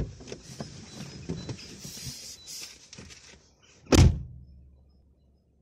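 Handling noise from a car dashcam being positioned inside the car: a run of small knocks, clicks and rubbing, then one loud thump about four seconds in.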